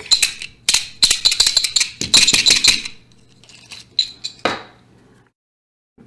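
Small metal tools and objects clinking and rattling against each other on a workbench, as when rummaging through them for a toothpick: rapid sharp clinks for about three seconds, then a few scattered clinks with one louder knock near the end.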